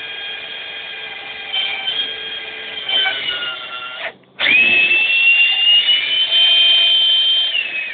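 Electric drill motor whining at speed, its pitch sagging and shifting with the trigger. It cuts out for a moment about four seconds in, then spins up again, louder and higher, holds a steady whine and winds down near the end.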